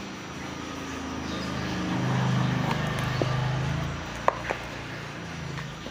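A low engine hum swells over about two seconds and fades again, like a motor vehicle passing by. A few sharp clicks and taps from handling the cardboard parcel are also heard, the loudest just after the hum dies away.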